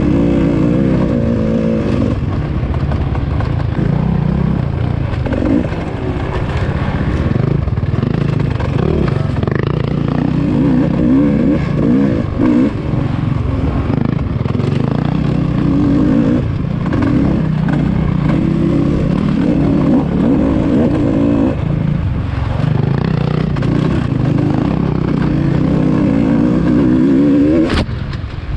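Off-road dirt bike engine ridden on a bumpy forest trail, its pitch rising and falling as the throttle opens and closes, with rattling of the bike over the rough ground. The engine drops off briefly near the end.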